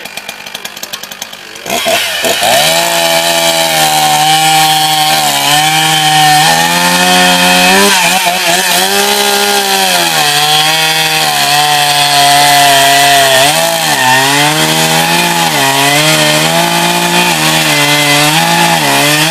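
Oleo-Mac two-stroke chainsaw idling with rapid, even firing, then opened to full throttle about a second and a half in. It cuts through a birch log with a Carlton chain, the engine pitch dipping and recovering again and again as the chain bites into the wood.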